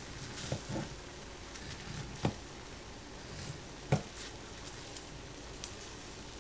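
Kitchen items being handled: four light knocks and clicks, the loudest about four seconds in, over a steady low hiss.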